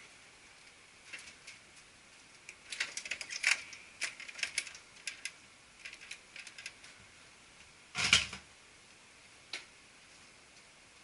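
Plastic clicks and rattles of a Konica Minolta bizhub C252 copier's side door being unlatched and swung open, thickest between about two and five seconds in, then a dull thump about eight seconds in.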